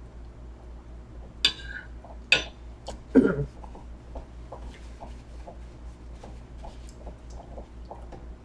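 Eating sounds at a table: three sharp clicks of cutlery against a plate and a paper napkin being handled, between about one and a half and three seconds in. Faint light ticking follows.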